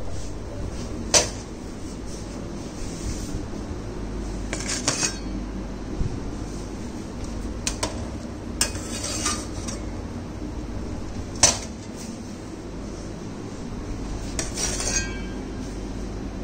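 Kitchen clatter of metal trays and utensils: scattered sharp clinks and knocks over a steady low hum. The loudest knocks come about a second in and again about eleven seconds in.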